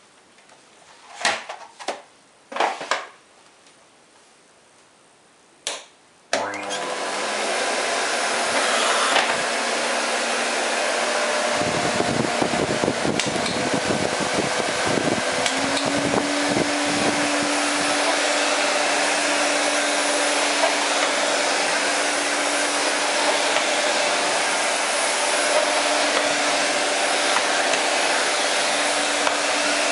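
Miele Silverstar S280i canister vacuum cleaner, a 1200 W model, being switched on after a few short knocks of handling. The motor spins up over about a second and then runs steadily. Low knocks and rumbles come and go for a few seconds about halfway through, and a steadier hum joins the motor sound soon after.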